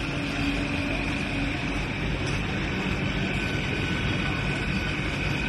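Vande Bharat Express electric train set running on the track: a steady rushing rumble with faint steady high tones over it.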